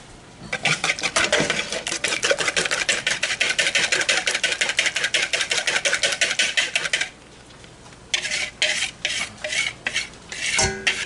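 Eggs being beaten with a wire whisk in a mixing bowl: rapid, even whisk strokes, about eight a second, for some six seconds. A few looser strokes follow, and then a brief ringing clink near the end.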